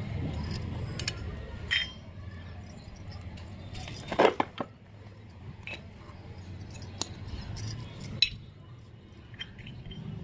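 Miniature stainless-steel kitchen utensils, a small grater among them, clinking and tapping as they are handled and set down on concrete: scattered light clicks, the loudest knock about four seconds in and another sharp tap just past eight seconds. A low steady rumble runs underneath.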